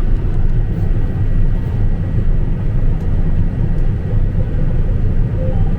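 Heavy farm machinery's diesel engine running steadily, a loud low rumble.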